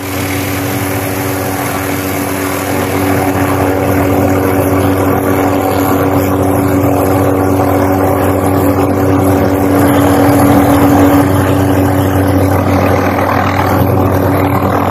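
MD 500-series light helicopter running on the ground with its rotor turning: a steady turbine whine and rotor noise, getting a little louder a few seconds in.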